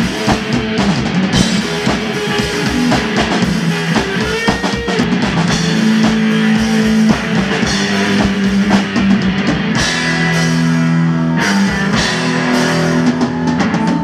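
Loud live rock music from an electric guitar and a drum kit playing together, with no singing.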